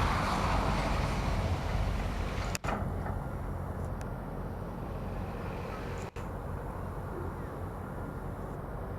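Loaded log train rolling past, its wagons rumbling on the track, the sound fading over the first few seconds to a steady low rumble as it moves away.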